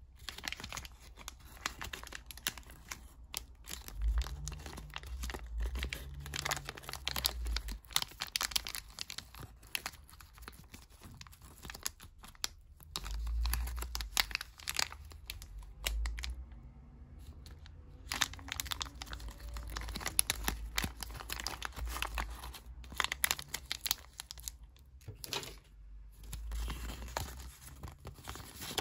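Plastic blind-bag packet crinkling and tearing under the hands, in irregular crackles with dull handling bumps. Near the end a folded paper leaflet rustles as it is opened out.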